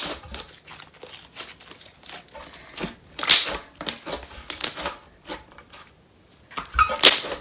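A thick, clear glue-based jelly slime made with instant snow being squished and stretched by hand, giving a steady run of small crackly clicks. Louder crackles come about three seconds in and again near the end.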